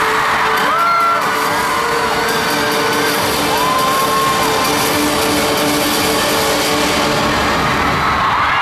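Concert crowd screaming and cheering over the intro music, which holds steady low notes, with several long high screams from fans close by during the first half.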